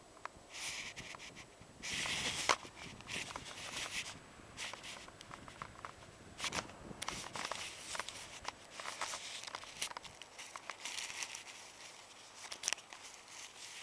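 Handling noise from a handheld camera brushing against cloth: rustling and rubbing in several bursts, the loudest about two seconds in, with scattered clicks and small knocks throughout.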